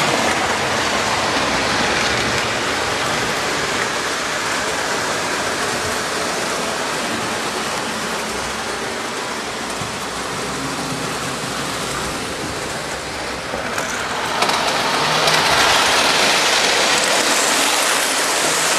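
O-gauge model train rolling on three-rail track, a steady rushing hiss of wheels and running gear, getting louder about three-quarters of the way through as the train passes close.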